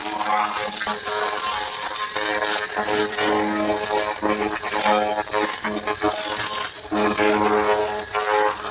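Background music of held chords that change every second or two, over a steady high hiss.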